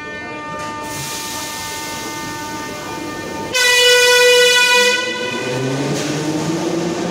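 Metro train at the platform, with a steady hum of several tones. Just after halfway the train's horn gives one loud blast of about a second and a half, the departure signal. Then the traction motors whine steadily higher in pitch as the train pulls away.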